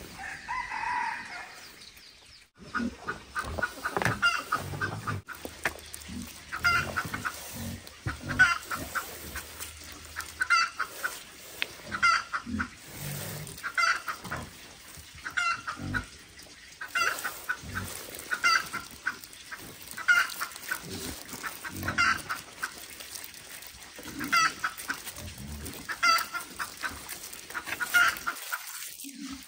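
Chicken clucking over and over, short calls repeating about once a second, with dull low knocks underneath.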